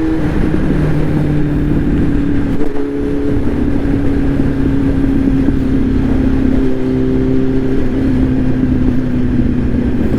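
Kawasaki Z800's inline-four engine running at a steady cruise while riding, its pitch slowly easing lower, with wind rumbling over the microphone.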